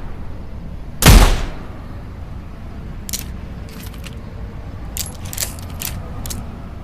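.38 snub-nose revolver firing a single shot about a second in, with a short ringing tail. Several faint clicks follow.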